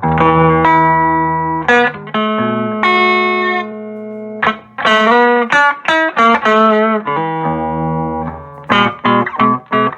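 Electric guitar played through a Showman amplifier: held chords and notes ringing out, some wavering with vibrato in the middle, then a run of short, choppy chords near the end.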